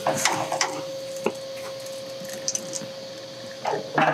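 A few light clicks and scrapes of hand tools on the fittings at the main oil screen under an aircraft radial engine, over a steady hum.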